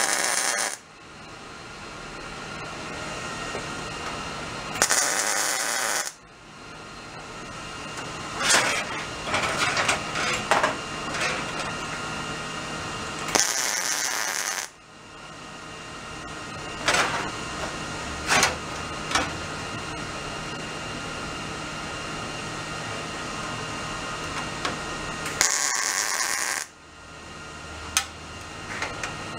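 MIG welder arc crackling in short bursts of about a second each, four in all: tack welds joining eighth-inch steel collars to thin sheet metal. Between the welds there is a steady hum and hiss with a few sharp clicks and clanks of the metal being handled.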